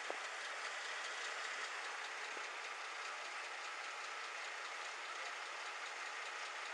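Steady rushing hiss of wind on a body-worn camera's microphone, with one faint tick just after the start.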